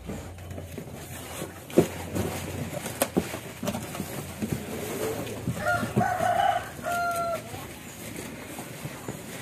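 Cardboard box flaps being folded shut and pressed down by hand, with scattered knocks and rustles. About six seconds in, a rooster crows, a flat call in two parts.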